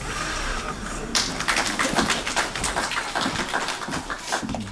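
Audience applauding, the clapping growing dense about a second in.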